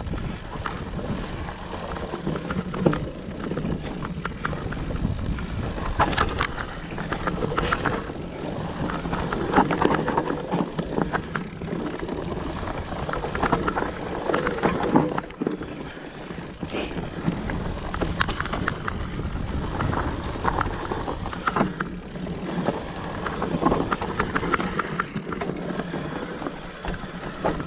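Specialized Turbo Levo electric mountain bike riding down a dirt forest trail: a steady rumble of tyres on the ground and rushing air, broken by frequent irregular clatters and knocks of the bike over roots and bumps.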